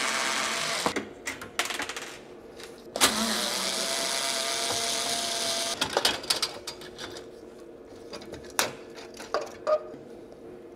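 Small cordless electric screwdriver running in two steady bursts of about three seconds, backing out the screws that hold a laser printer's power board. The first burst stops about a second in, and the second spins up about three seconds in. After that come light clicks and knocks of the printer's parts being handled.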